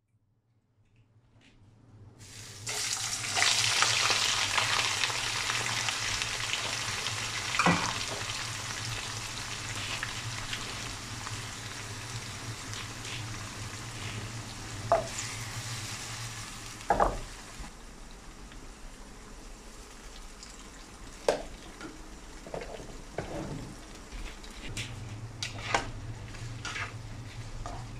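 Sliced onions sizzling in hot oil in a non-stick stir-fry pan. The sizzle starts suddenly about two and a half seconds in as they hit the oil, then slowly dies down. A few sharp knocks come through it, and a spatula stirs the onions near the end.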